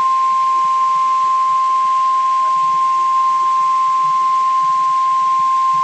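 NOAA Weather Radio warning alarm tone: one steady, loud 1050 Hz tone over a faint radio hiss. It is the attention signal that comes before a broadcast warning, here a flash flood warning.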